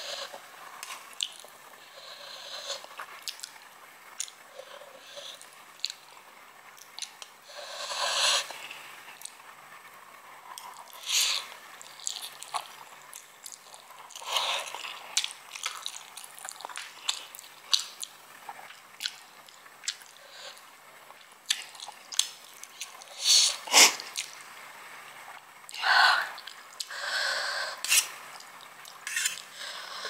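Close-up eating sounds: a person chewing and slurping Samyang fire noodles, with small wet mouth clicks and louder bursts every few seconds.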